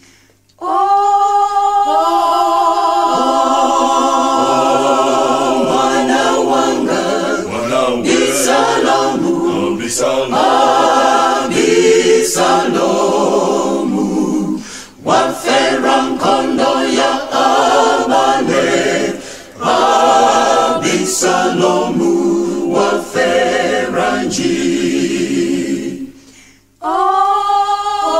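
Choir singing a cappella in long held phrases, broken by brief pauses for breath about halfway through and near the end.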